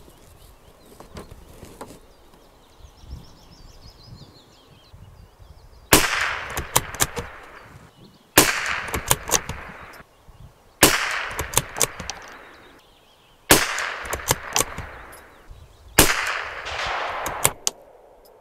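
Five shots from a Tikka T1X bolt-action .22LR rimfire rifle firing subsonic Norma Match-22 ammunition, evenly spaced about two and a half seconds apart starting about six seconds in. Each sharp crack is followed by a few small clicks as the bolt is worked between shots.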